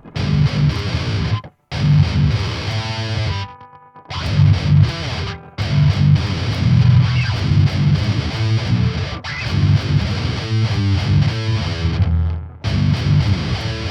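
Distorted electric guitar playing a heavy metal riff of repeated low notes and higher fretted notes. It stops and restarts several times as the part is being learned.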